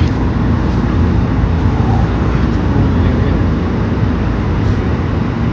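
Steady, loud low rumbling noise with no clear pitch or rhythm.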